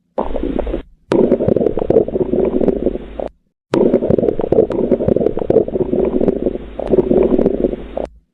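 Abnormal bowel sounds from an abdomen: loud, near-continuous gurgling and rumbling with many small pops. It is broken by two short silent gaps, about a second in and about three and a half seconds in.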